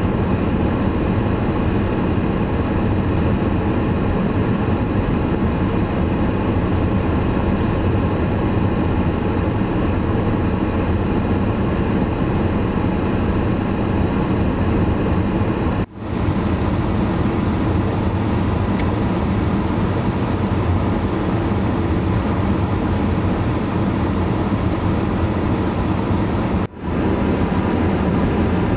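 Blizzard wind blowing hard across the microphone: a steady, heavy rumbling rush, cut off for an instant twice.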